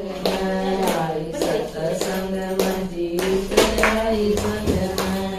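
Group of women singing a Haryanvi bhajan together, clapping their hands in time at about two claps a second.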